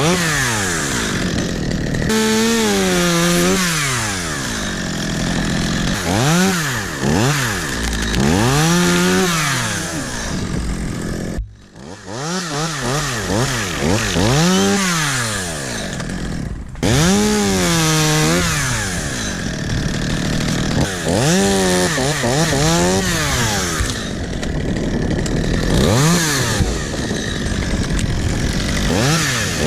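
Two-stroke chainsaw revving up and dropping back again and again, in repeated throttle bursts. There are a few abrupt breaks in the sound.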